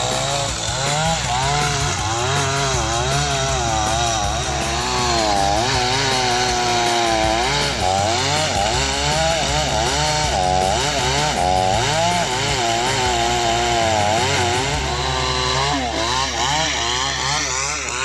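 Two-stroke chainsaw cutting through a thick tree trunk, running at full throttle with its pitch wavering up and down as the chain loads and frees in the wood.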